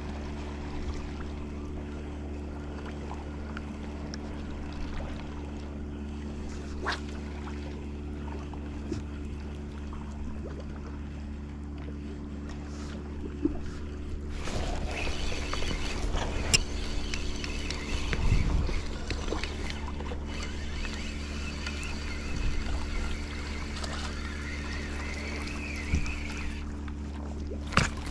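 A steady, low motor-like drone runs throughout. About halfway in, a spinning reel starts whirring as line is wound in, and it stops shortly before the end.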